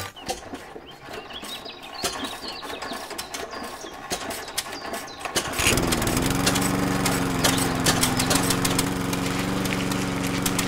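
Miniature model engine starting about halfway through, dipping in pitch for a moment, then running at a steady hum. Before it starts there are only faint clicks and rustling.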